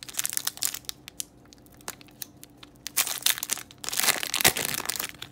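Foil wrapper of a Pokémon trading card booster pack crinkling and tearing as it is opened by hand. The crackling comes in bursts, loudest from about three to five seconds in.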